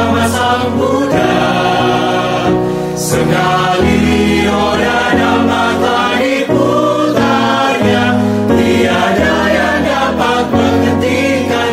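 Mixed choir singing a Buddhist devotional song in Indonesian, sustained chords shifting every second or so over strong low notes.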